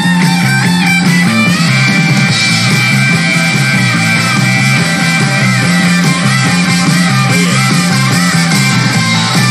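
Live rock band music: an electric guitar lead with bent, wavering notes over a steady bass line.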